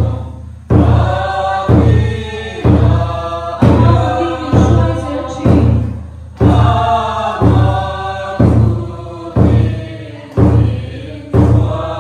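Congregation singing a hymn together, with a deep drum struck on a steady beat about once a second.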